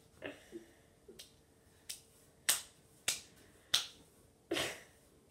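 Sticky homemade slime being squeezed and pulled apart between the hands, giving a run of sharp sticky smacks and pops that grow louder after about two seconds.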